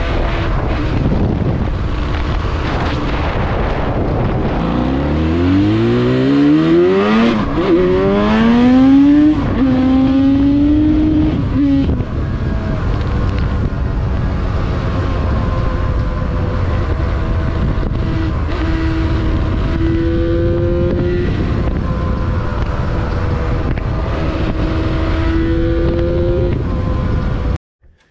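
Yamaha RZ350's two-stroke parallel-twin engine under way. About five seconds in it revs hard, its pitch climbing steeply for several seconds, then it runs at a steadier cruise with a few gentle pitch climbs, under heavy wind noise on the microphone. This is the engine on 350 main jets, which the rider judged to sound a bit lean at high revs.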